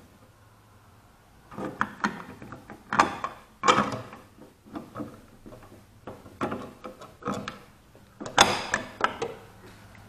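Screwdriver driving a screw into a light-switch wall plate: irregular scraping clicks and taps of the tip turning in the screw head, with the loudest bout near the end.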